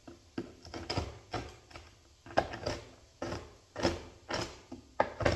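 Knife chopping macadamia nuts coarse, a run of sharp knocks on the board about three a second.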